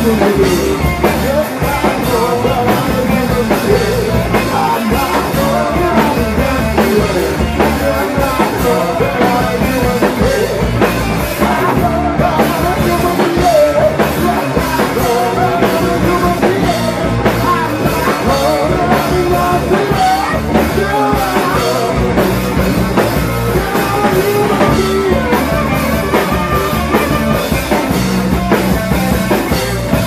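Rock band playing live and loud, with a drum kit hitting steadily under amplified instruments and singing.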